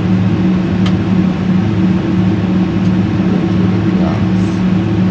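Steady drone of an airliner's jet engines and airflow heard inside the cabin on descent, a hum at several steady low pitches over a rushing noise. A faint tick about a second in.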